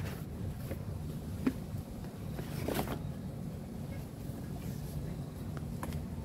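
Cardboard boxes being folded and crushed flat: a sharp knock, then a crackling crunch of cardboard a little before the midpoint, with scattered small rustles and clicks. A steady low rumble runs underneath.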